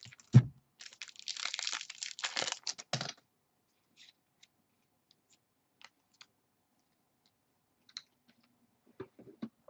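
A trading-card pack wrapper being torn open and crinkled for about three seconds, with a low thump near the start. Then only faint scattered clicks.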